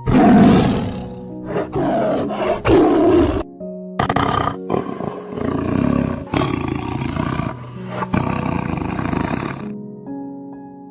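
A big cat roaring in a string of loud roars: several in the first three and a half seconds, then after a short break a longer run that stops about a second before the end. Background music with steady held notes plays underneath.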